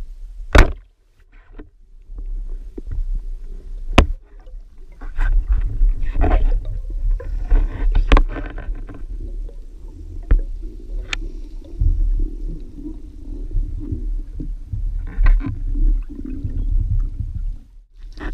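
Band-powered speargun firing underwater: a single sharp snap about half a second in. Afterwards comes underwater action-camera sound of a diver swimming: low rumbling water noise with scattered sharp clicks, one loud one about four seconds in.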